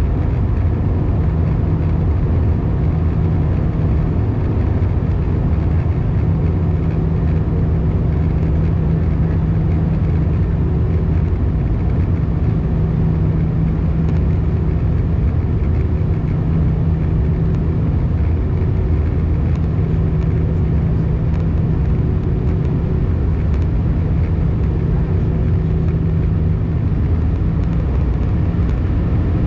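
Cabin noise inside an Airbus A319 in flight: a steady low drone of the engines and rushing air, with a steady low hum that drops out near the end.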